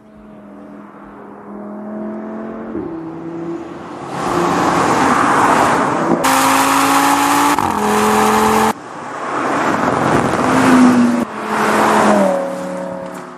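Audi RS 3 Sedan's 2.5 TFSI turbocharged five-cylinder engine accelerating hard along the track, its note climbing in pitch and dropping at each upshift, several gear changes in all. It is loudest in the middle, where the car passes close.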